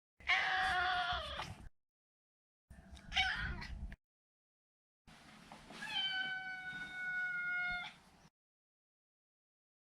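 Maine Coon cat meowing three times, each call separated by silence: a meow that drops in pitch at its end, a short meow, then a long meow held steady at one pitch for about three seconds.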